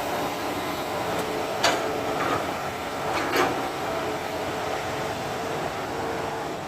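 Excavator's diesel engine running steadily, with two sharp metallic clanks, one about a second and a half in and another about three seconds in.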